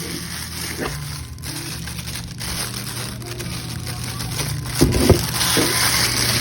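Packaging being handled while a camera is unboxed: plastic and paper crinkling and rustling, with two sharp knocks close together about five seconds in.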